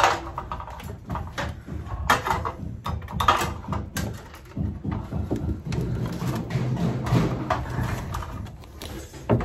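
Irregular knocks, bumps and rustling of a worker handling material and moving about in a cramped attic space around sheet-metal and flex ductwork, with a low hum under the second half.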